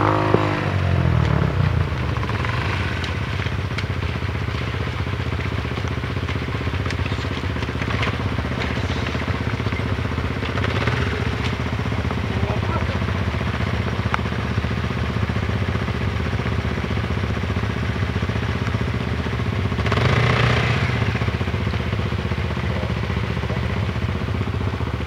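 Single-cylinder off-road trail motorcycle engine running at a steady idle, with a rev falling away in the first second and a brief blip of throttle about 20 seconds in.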